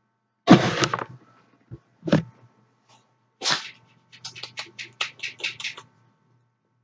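Dogs snorting and huffing while they play: a loud snort about half a second in, two more a second or so apart, then a quick run of short huffs.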